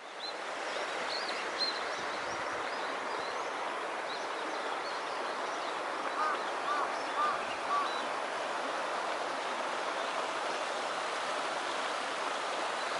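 Small creek running steadily, with high bird chirps in the first few seconds and a bird's call repeated four times around the middle.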